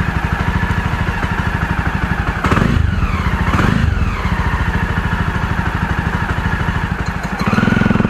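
Jawa motorcycle's single-cylinder engine running at low speed while being ridden, a steady rapid putter. It gets louder near the end.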